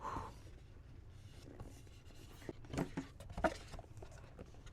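Cardboard packaging being opened and handled by hand: faint rustling and scraping, with two sharper knocks about three seconds in.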